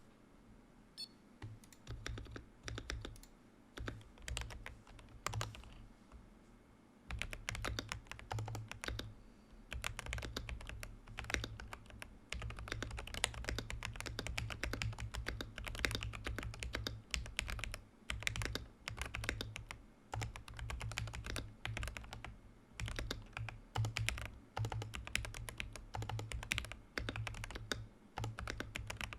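Command 65 prototype mechanical keyboard with Holy Panda X tactile switches on a POM plate being typed on, its buzzer switched off. Scattered single keystrokes for about the first seven seconds, then fast continuous typing, each stroke a sharp click over a low thud.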